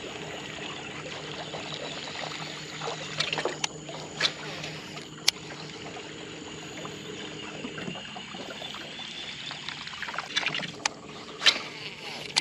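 A small boat motor hums steadily, cuts out about eight seconds in and starts again about two seconds later. Water trickles and laps throughout, with a few sharp knocks.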